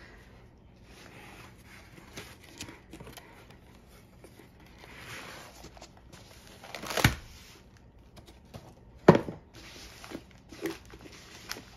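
Cardboard box and paper-wrapped rolled canvas rustling and scraping as they are handled on a table, with two sharp knocks about two seconds apart in the second half, the second the louder.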